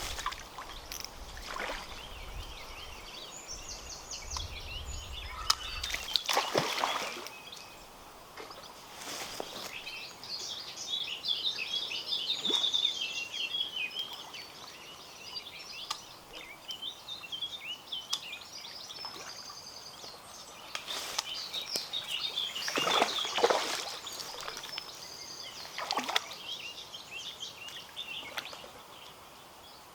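Songbirds chirping and singing steadily by a river, broken by a few brief splashy surges as a hooked small trout is played at the surface. The two loudest surges come about a quarter of the way in and again about three quarters through.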